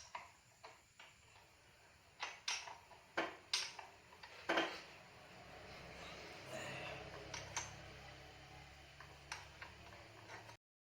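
Metal tools and parts clinking and knocking as they are handled, a dozen or so irregular sharp clinks over a light steady hum; the sound cuts off abruptly near the end.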